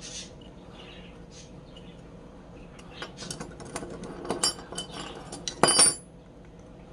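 Metal hand tools clinking on a workbench as a pair of pliers is picked up from among other tools and its jaws closed on the metal ferrule of a rusty screwdriver. The clicks come in a cluster through the second half, ending in a short ringing metal clatter, the loudest sound.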